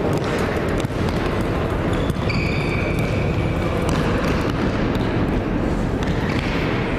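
Futsal ball being kicked and dribbled on a sports-hall floor: repeated sharp knocks of the ball and players' footsteps over steady hall noise, with a brief high squeal a couple of seconds in.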